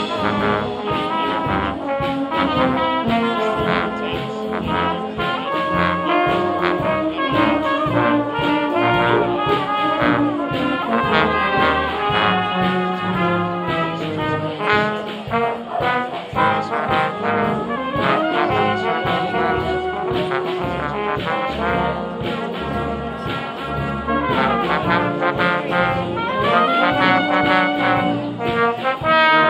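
Brass band playing a tune, with trombones and trumpets carrying the melody over a steady beat.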